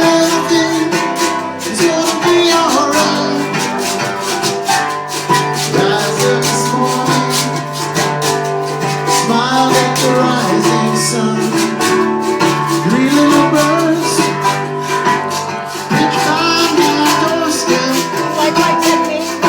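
Live acoustic reggae music: an acoustic guitar with a shaker keeping a steady rhythm throughout.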